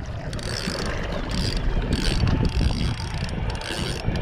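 Spinning reel being cranked to bring in a hooked fish, its gears and ratchet clicking.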